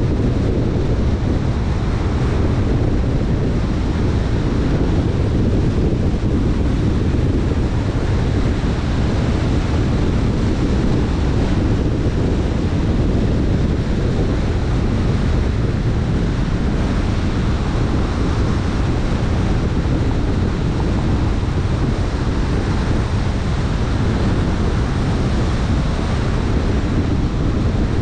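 Steady low rushing noise, heaviest in the low end, unchanging throughout with no distinct events.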